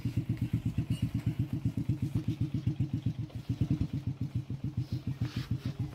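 Small engine idling with a steady, even chugging of about ten pulses a second, cutting off abruptly at the very end.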